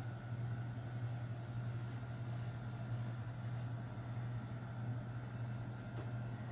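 Steady low hum with a faint even hiss, the constant background noise of a running machine or appliance, with a faint tick about six seconds in.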